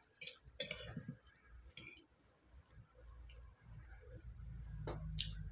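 Cutlery clinking lightly against a plate while eating: a handful of short, sharp clinks at uneven intervals.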